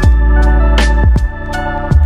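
Background music: a beat of deep kicks that drop in pitch and sharp high strikes over held chords.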